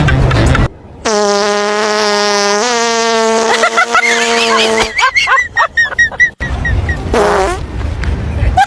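A long, buzzy fart sound held at a steady low pitch for about four seconds, stepping up slightly partway through, followed by a run of short high chirps.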